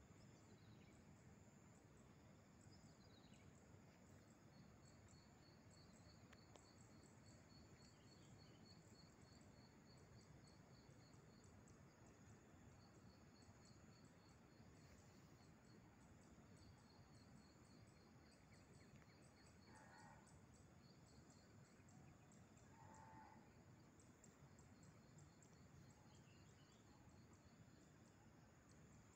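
Near silence: faint outdoor ambience with a high, rapidly pulsing chirping trill that comes and goes, and two brief faint calls about three seconds apart around two-thirds of the way through.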